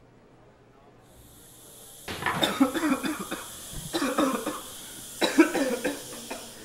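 A man coughing hard in three fits, the first about two seconds in. Under the coughing there is a steady high hiss that starts about a second in.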